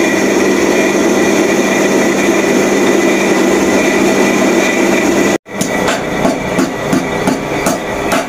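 Electric blacksmith's power hammer with a belt-driven flywheel running, a steady mechanical hum with no strokes. After a cut about five seconds in, the hammer knocks in a steady rhythm of about three blows a second over the motor's hum.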